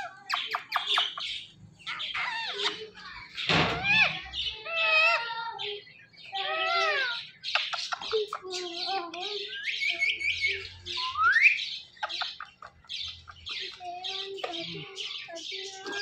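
Rose-ringed (Indian ringneck) parakeets chattering and squawking with many short sharp calls and some longer pitched calls, one of which rises steeply about eleven seconds in.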